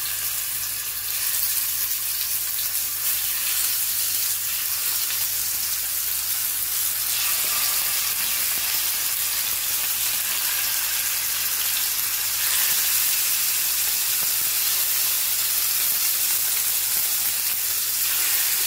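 Marinated chicken pieces sizzling in hot coconut oil in a frying pan: a steady hiss that steps up louder about seven seconds in and again about twelve seconds in, as more pieces go into the oil.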